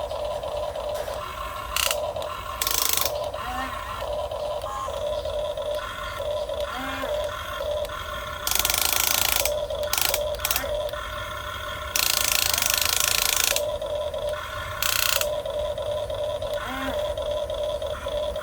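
Geared electric motors of a Huina 1550 RC excavator whining steadily as the model works, dropping out briefly between moves. Several loud hissing bursts cut in over the whine, the longest about a second and a half.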